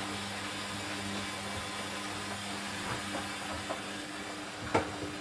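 Hoover Dynamic washing machine filling with water for a rinse: a steady hiss of water rushing in through the inlet valve, with a low, even hum under it. A short sharp knock just before the end.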